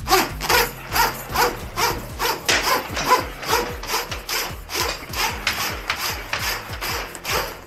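Electrical wires being pushed by hand into a plastic conduit: a sliding, rubbing stroke repeated regularly, about two to three times a second.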